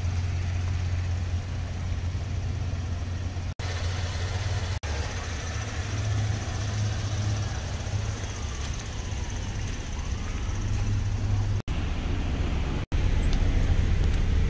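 GMC Terrain's 3.0-litre V6 idling with a steady low hum, heard from outside the vehicle. The sound drops out briefly a few times.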